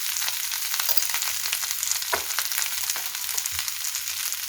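Spiced potato and onion samosa filling sizzling and crackling in hot oil in a kadai, with a couple of light spatula knocks.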